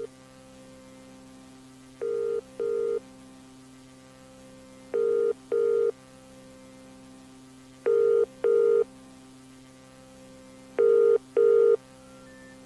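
Telephone ringing tone heard over the line: four double rings, two short beeps each, about three seconds apart, getting slightly louder, over a steady electrical hum.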